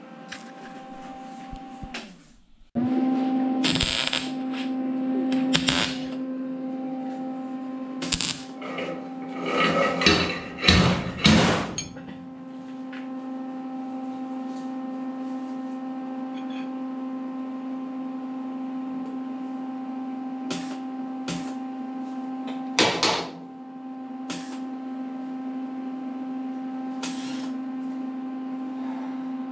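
MIG welder laying short tack welds on steel sheet metal: brief crackling bursts, a cluster around 8 to 12 seconds in and another near 23 seconds, over a steady electrical hum that switches on about three seconds in.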